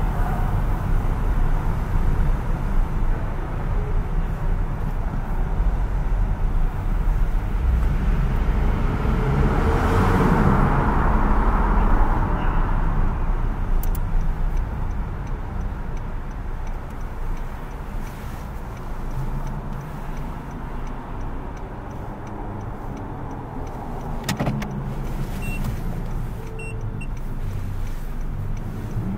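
Low steady rumble of a Honda Jazz driving slowly, heard from inside the car. A broad hissing swell rises and fades about ten seconds in, and there is one sharp click near the end.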